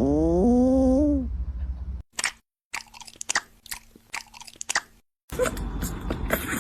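A cat's drawn-out meow lasting about a second, rising and then bending in pitch twice. Scattered short crunching clicks follow.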